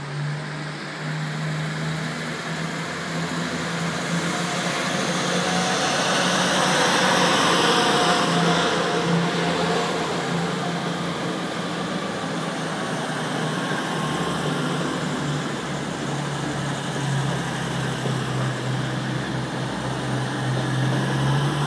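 Class 222 Meridian diesel-electric multiple unit running past along the platform, its underfloor diesel engines giving a steady low drone. The sound grows louder as the cars draw alongside, peaking about seven seconds in.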